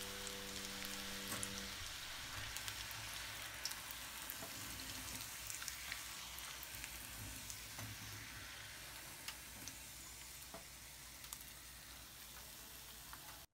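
Corn fries deep-frying in hot oil in a pan: a steady sizzle with scattered small pops. The sizzle slowly dies down as the bubbling in the oil subsides.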